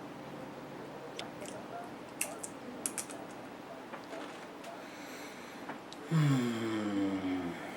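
A person eating guacamole to taste it: a few small sharp clicks in the first few seconds, then a long vocal sound of approval whose pitch falls, about six seconds in.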